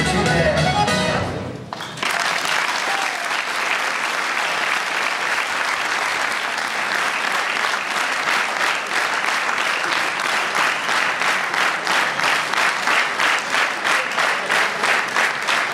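Recorded music cuts off suddenly about two seconds in, and an audience applauds. The applause gradually settles into steady rhythmic clapping in unison, at about two to three claps a second.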